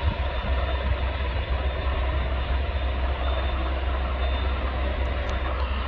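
EH101 Merlin helicopter running, a steady deep rumble and hiss with a faint high whine.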